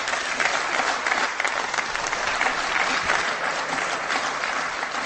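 Members of a parliamentary chamber applauding: dense, steady clapping that holds at an even level without a break.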